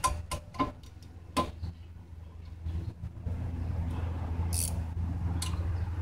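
A hand wrench clicks and clinks against a rear disc brake caliper as its bolts are worked loose, giving a few sharp metallic clicks in the first second and a half. A steady low hum comes in about three seconds in, with a brief hiss about four and a half seconds in.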